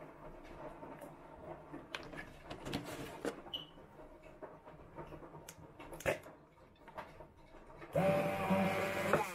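Soft scattered clicks and knocks, then about eight seconds in a hand-held immersion blender starts up, running with a steady whine as it blends fruit purée and milk in a plastic beaker. It cuts out just before the end.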